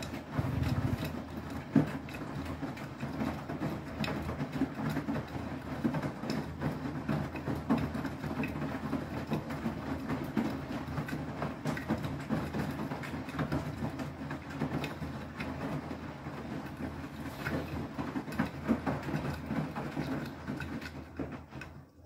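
Beko WTK104121W front-loading washing machine in its main wash: the drum motor hums steadily as the drum turns, with water sloshing and wet laundry tumbling and dropping inside. The sound fades out at the very end.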